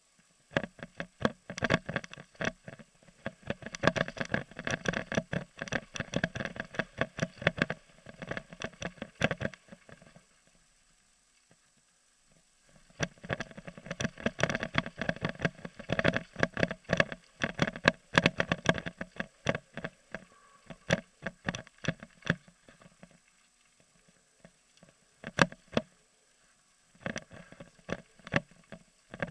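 Downhill mountain bike clattering and rattling over a rough trail, heard through a helmet-mounted camera: long stretches of dense rapid knocking, broken by quieter gaps about ten seconds in and again a little past twenty seconds.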